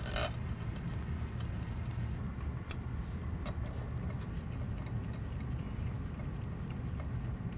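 Scattered small metallic clicks of steel bolts being dropped into the holes of a linear ball rail and finger-tightened by gloved hands, over a steady low hum.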